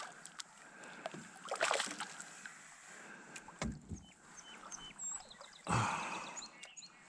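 A hooked fish splashing at the surface beside a canoe as it is brought in to be landed, with water sloshing and a couple of thumps, the loudest near the end.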